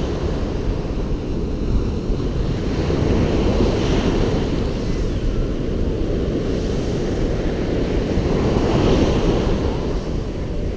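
Sea waves washing onto a fine-pebble beach, two waves surging in a few seconds apart, the second near the end, with wind rumbling on the microphone.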